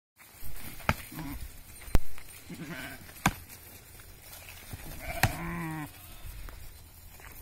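Sheep bleating about three times, the last call longer, with four sharp cracks of rams butting heads; the loudest crack comes about two seconds in.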